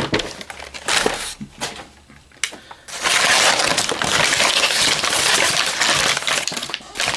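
Crumpled brown kraft packing paper rustling and crinkling as hands dig through it. A few scattered crackles come first, then from about three seconds in a loud, continuous crinkling runs until just before the end.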